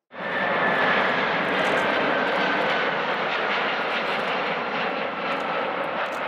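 McDonnell Douglas MD-11 freighter's three jet engines on landing approach: a loud, steady jet rush with a whine that slowly falls in pitch.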